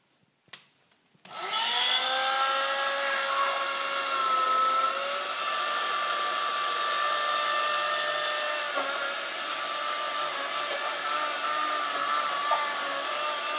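Electric hand blender switched on about a second in, its motor whine rising briefly as it spins up, then running steadily with small wobbles in pitch as the blade works through thick cake batter.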